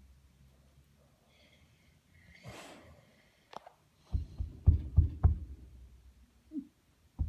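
A single short breathy sound, then from about four seconds in a quick cluster of dull low thumps and knocks.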